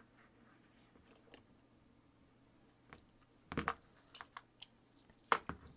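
Small desk vise being tightened around a thin photo-etched metal jig: short metal clicks and knocks from the vise handle and the clamped parts, a few faint ones at first, then a quick cluster in the second half, the sharpest about five seconds in.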